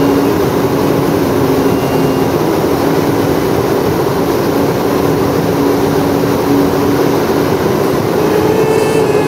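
Hot-air balloon propane burner firing in one long blast, a loud steady roar that cuts off abruptly near the end, with a held music note faintly beneath it.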